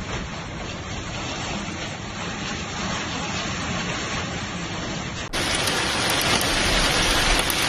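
Heavy storm downpour, a steady dense hiss of rain. About five seconds in it cuts to a second recording of the downpour, louder and brighter.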